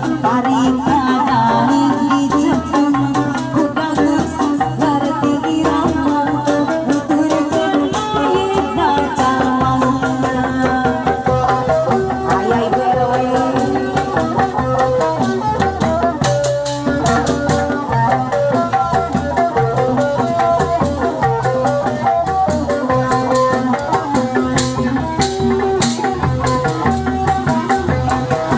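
Sundanese traditional ensemble music: hand-drum strokes played over steady melodic instruments.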